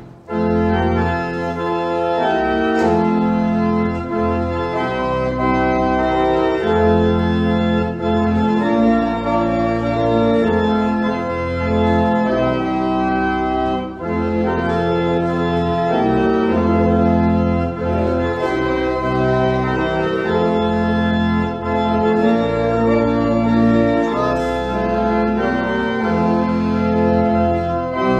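Church pipe organ playing slow, sustained chords over a deep pedal bass, the chords changing every second or two. A new phrase comes in just after the start.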